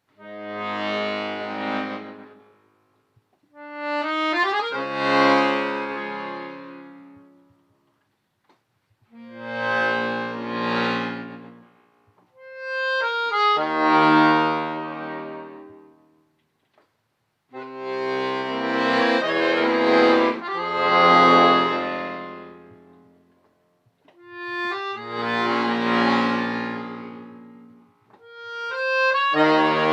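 Solo accordion playing slow phrases of held chords over bass notes. Each phrase swells and then fades away, and brief silences fall between the phrases.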